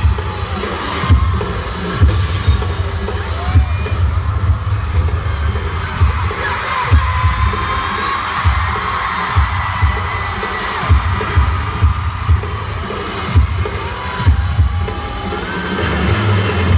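Live K-pop dance music played over arena loudspeakers and picked up by a phone microphone, dominated by a heavy, regularly thudding bass beat.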